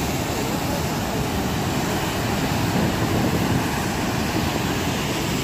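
Steady roar of fast river rapids and the waterfall at Niagara Falls, with wind buffeting the microphone.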